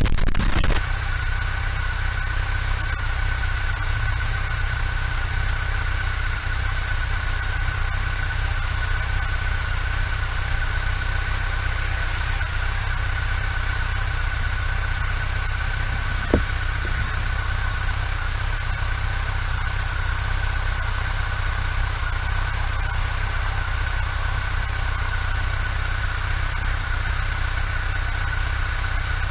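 Motorcycle engine running steadily at idle, a low, even sound, with one sharp click about 16 seconds in.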